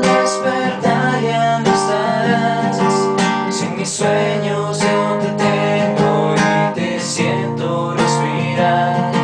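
Instrumental passage of a song: acoustic guitar strummed in a steady rhythm over sustained chords.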